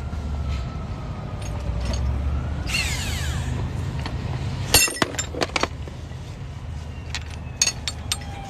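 Sharp metallic clinks and clatter of hand tools against metal in the second half, over a steady low rumble of road traffic.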